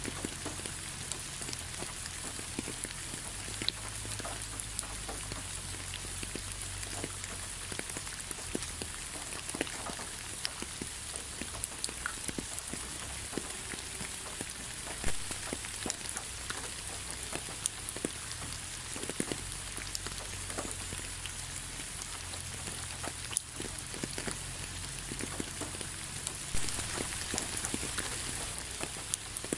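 Steady rain falling, with many separate drops ticking sharply close by.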